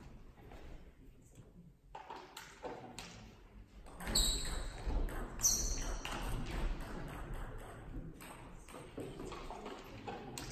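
Sports hall ambience: scattered sharp clicks like table tennis balls bouncing, two short high squeaks about four and five and a half seconds in, and faint voices in the hall.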